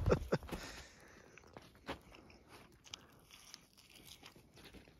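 A person biting and chewing a chewy piece of venison backstrap steak close to the microphone: a few sharp bites at the start, then faint chewing clicks.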